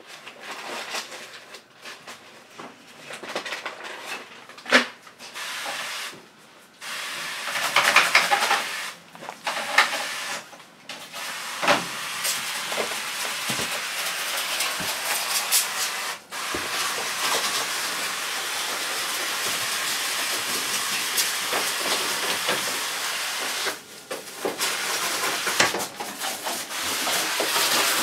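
High-pressure water spray hissing against washing-machine parts being cleaned, starting and stopping a few times, then running steadily for several seconds with a short break near the end.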